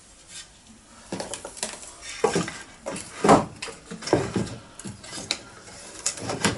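Small hard plastic Button Fix panel fittings being handled, giving irregular clicks, knocks and clatter that start about a second in.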